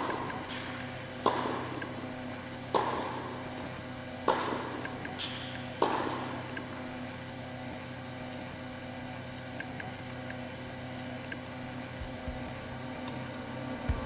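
Four sharp knocks, evenly spaced about a second and a half apart, each with a short ringing tail, over a faint steady hum.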